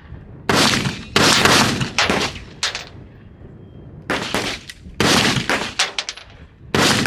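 Gunshots at a shooting range: about ten shots fired at an uneven pace, some louder and some fainter, each with a short echoing tail.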